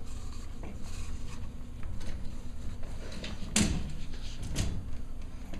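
Cavalier King Charles spaniel puppies scrambling about a play gym, with scattered light knocks and two louder knocks about three and a half and four and a half seconds in.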